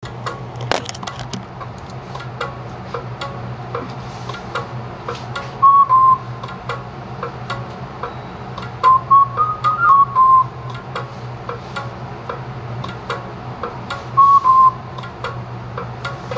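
A person whistling short melodic phrases over a steady ticking beat: a pair of notes about six seconds in, a longer run of rising and falling notes around nine to ten seconds, and another pair near the end.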